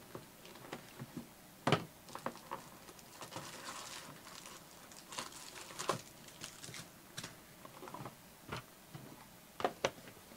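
Hands opening a cardboard trading-card hobby box and lifting out its foil-wrapped packs: irregular taps and knocks of cardboard and packs being set down, with some rustle and crinkle of the foil wrappers.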